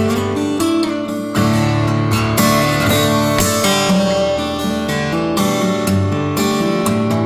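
Background music led by strummed and plucked acoustic guitar, with a steady beat of strums.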